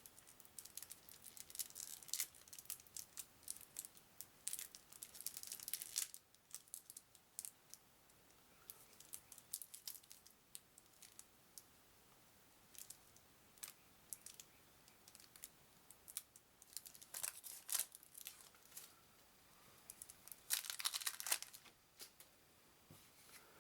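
Wrapping around a stack of game cards being torn open and crinkled by hand. There is dense crackling for the first several seconds, then scattered faint ticks, then two more short bursts of crinkling near the end.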